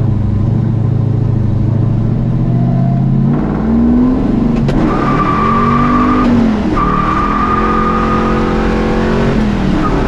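Plymouth Superbird's V8 running while the car is driven, heard from inside the cabin. The engine note holds steady, drops about three seconds in, then rises and falls several times, with a steady high whine over it from about halfway.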